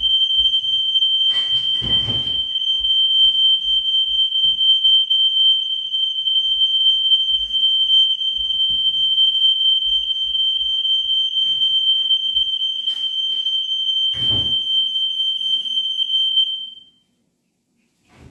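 Smoke alarm sounding, set off by cooking smoke: one loud, continuous high-pitched tone that cuts off suddenly near the end. A couple of brief knocks are heard under it, about two seconds in and again later.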